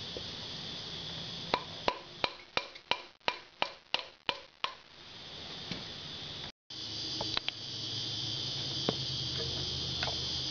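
About ten light, quick taps in a row, coming faster, as the Evolution Sportster's cylinder barrel is tapped down over its piston. After a short dropout, a steady hum and hiss.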